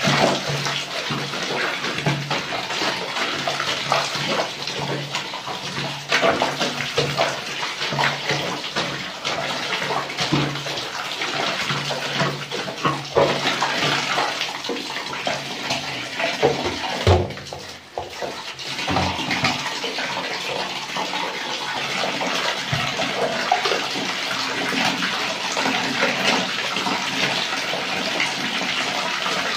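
Soapy water sloshing and splashing in a plastic basin as a load of laundry is trodden underfoot and then scrubbed and squeezed by hand, over the steady sound of water pouring into the basin. There is a brief lull a little past halfway, after which the washing sounds steadier.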